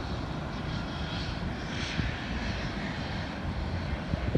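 Distant jet airliner engines: a steady rumble with a faint high whine that swells and fades in the first half.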